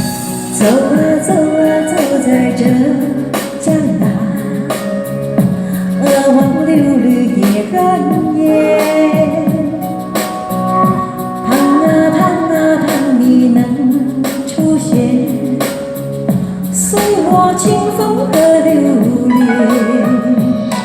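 Pop music with a steady beat and a melody line that bends like a singing voice.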